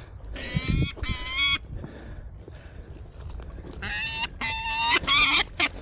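A bird giving loud, harsh calls that waver in pitch: two about half a second in, then a run of four near the end, the last one short.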